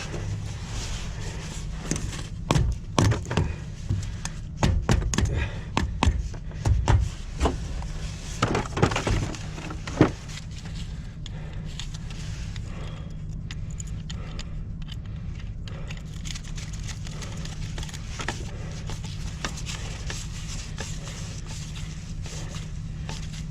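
A run of irregular knocks, clunks and clatters, the loudest about ten seconds in, then they stop, over a steady low hum.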